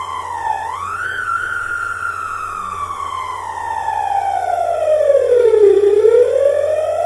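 Homemade electronic engine-sound effect imitating the Honda Acty's E07A inline three-cylinder, played as an accelerating, driving truck. It is a single whining tone with overtones. The pitch dips briefly about half a second in, rises, then slides slowly down over several seconds to its lowest point near the end and climbs again.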